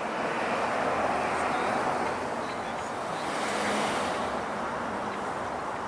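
Road traffic: cars passing nearby, a steady rushing noise that swells about a second in and again near four seconds.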